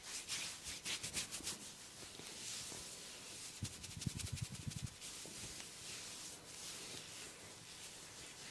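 Quick scratching and rubbing strokes on a person's hair and scalp during a head massage, with a brief run of rapid soft thuds midway.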